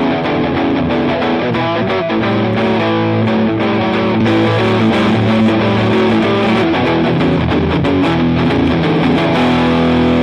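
Electric guitar played through a JOYO R21 overdrive pedal with its boost switched on and the drive at its middle setting, giving an overdriven, boosted tone. Held chords and notes ring out and change every second or so.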